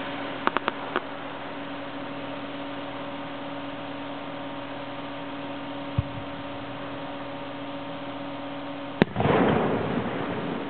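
Single aerial firework shell: a low thump about six seconds in, then a loud sharp bang about three seconds later as the shell bursts, followed by a loud noisy tail. A few faint sharp clicks come near the start over a steady background hum.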